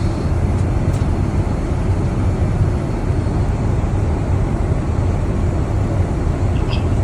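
Steady low rumble of airliner cabin noise aboard a Boeing 787 Dreamliner in flight, the engines and rushing air making an even drone.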